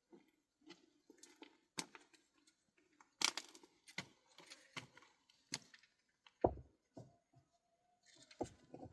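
Irregular handling sounds: scattered clicks and knocks, busiest about three seconds in, with a few dull thumps near the end.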